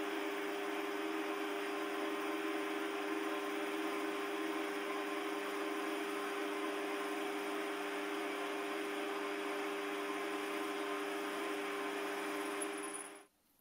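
Small Chinese metal lathe running steadily, its motor and gears humming and whining while a thin cutter works into a steel workpiece. The sound cuts off suddenly near the end.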